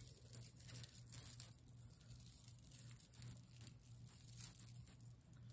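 Faint, scattered light rustles and clicks of small things being handled, over a steady low hum.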